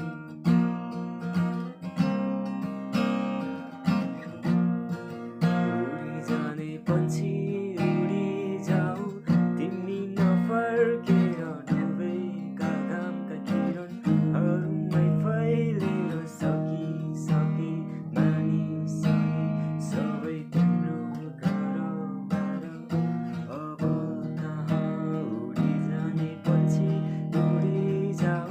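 Acoustic guitar strummed, playing the chords of a song in a steady rhythm of repeated strokes.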